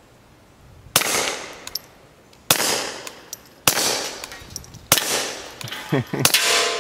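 Five suppressed shots from a Beretta 21A .22 LR pistol fitted with a suppressor, fired in a steady string about one and a quarter seconds apart, each sharp report trailing off in echo.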